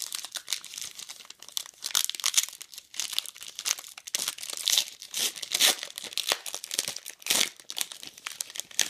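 Foil trading-card pack crinkling and tearing as it is ripped open by hand, in a run of irregular crackles.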